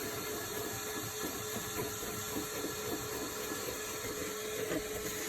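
Ridgid WD0319 cordless 3-gallon shop vacuum running steadily, its motor giving a constant whine over rushing air as it sucks dirt from a truck's floor carpet.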